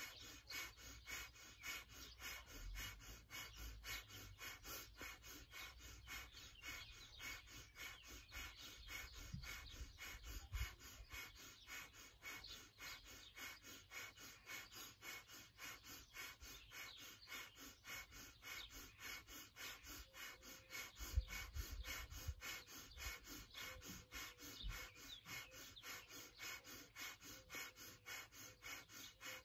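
Kundalini breath of fire: fast, rhythmic, forceful breaths through the nose, about three a second, faint and even.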